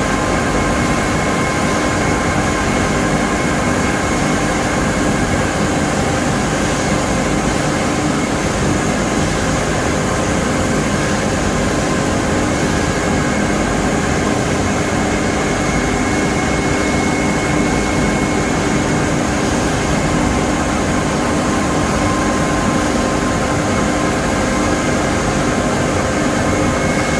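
Vertical ring die biomass pellet mill running steadily: an even, unbroken machine drone with a constant whine.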